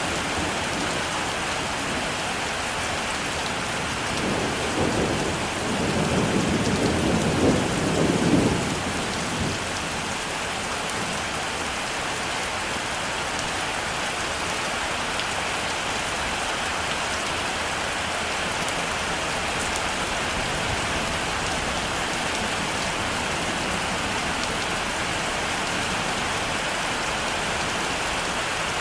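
Heavy rain falling steadily, with a roll of thunder rumbling low from about four seconds in and fading out around nine seconds.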